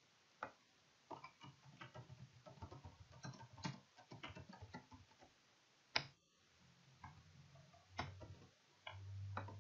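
Faint computer-keyboard typing: quick runs of key clicks with a few sharper single clicks, and a low hum coming in near the end.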